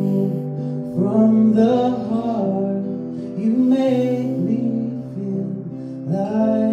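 Acoustic guitar strummed, a fresh chord every second or two, left to ring between strums.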